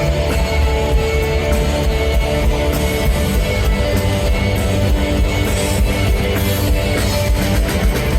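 Live rock band playing loudly: guitars over a drum kit with cymbals, continuing steadily.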